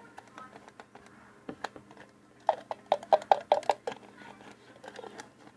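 Tapping on an antiseptic bottle: a few scattered taps, then a quick run of about ten ringing taps in the middle, and a few more near the end.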